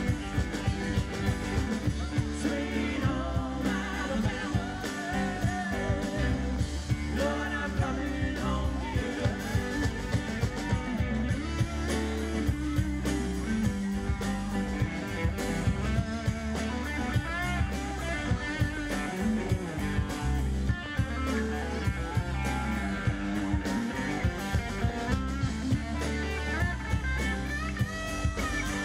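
Live rock band playing through a PA: electric and acoustic guitars, keyboard and drum kit, with a steady beat.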